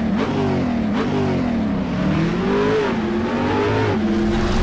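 Car engine revving up and down, its pitch rising and falling in several slow swells.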